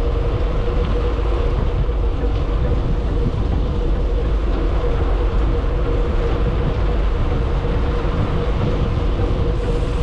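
Steady wind and road rumble from a moving ride, with a constant hum and no change in pace.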